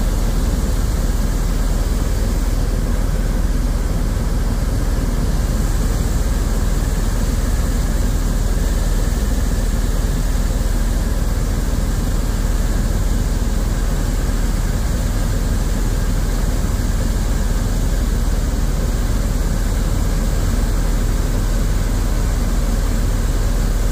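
Tour helicopter in flight: a loud, steady, deep drone of engine and rotor noise with no change throughout.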